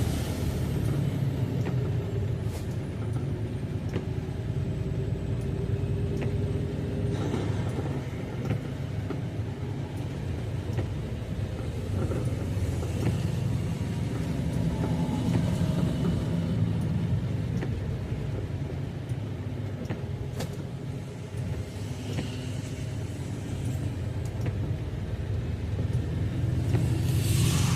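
Tractor-trailer heard from inside its cab while driving: a steady low rumble of engine and road noise.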